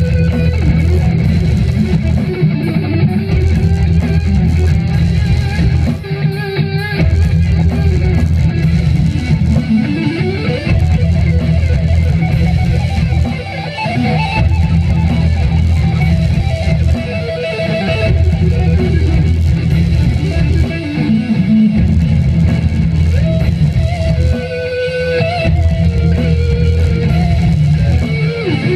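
Electric guitar played live through amplifiers, with held notes and slides up and down in pitch over a heavy low end.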